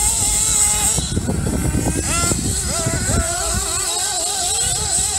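Small nitro two-stroke engines of 1/8-scale RC buggies buzzing at speed. Their pitch wavers up and down as the throttle changes, with a sharp rev about two seconds in.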